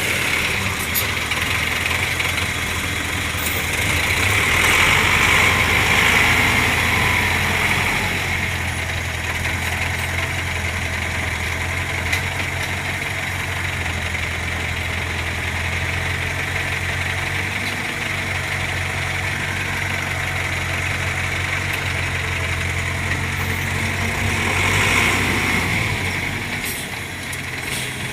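Volvo 55W excavator's diesel engine running steadily under work, growing louder twice as it digs and loads, about four seconds in and again near the end.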